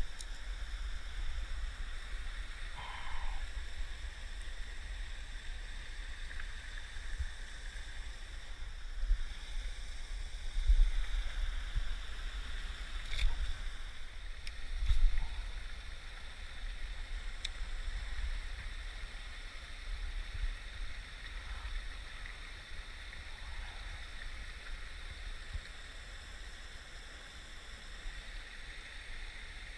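Wind buffeting the microphone in uneven low gusts, strongest around the middle, over a faint steady rush of water from a spillway, with a few light clicks.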